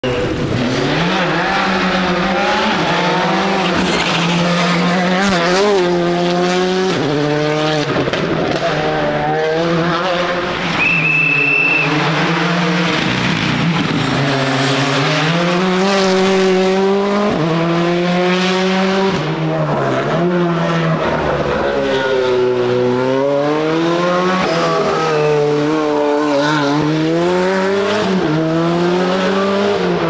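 Rally cars at full throttle on a tarmac stage, one after another, each engine note climbing and dropping back at every gear change, with tyres squealing through the corners. A brief high steady tone sounds about eleven seconds in.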